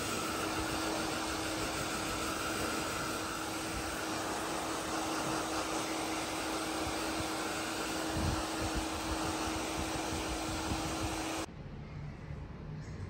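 Blow dryer running steadily with a constant hum while a freshly bathed Shih Tzu's damp coat is brushed and dried. It cuts off suddenly about eleven and a half seconds in.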